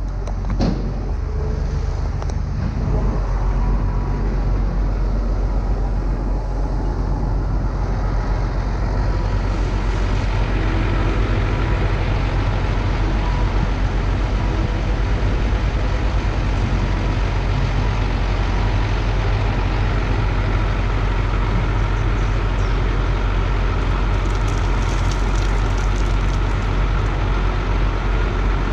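Heavy diesel engine running steadily with a low drone, with a few knocks in the first couple of seconds.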